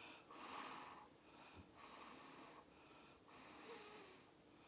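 Breath blown hard through pursed lips onto wet acrylic paint in a run of puffs, each about a second long, pushing the paint across the canvas.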